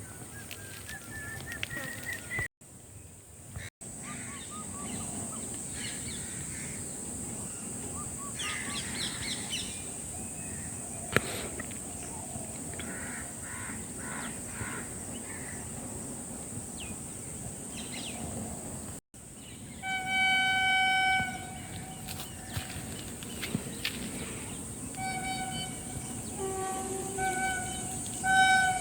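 Forest ambience: a steady high-pitched insect drone with bird calls, including crow caws and a few short chirps. About twenty seconds in a horn sounds once for about a second and a half, then gives several short honks near the end.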